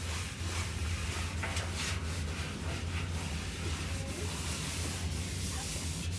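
Paper towel rubbing and wiping around the inside of a washing machine drum in repeated short strokes, over a steady low hum.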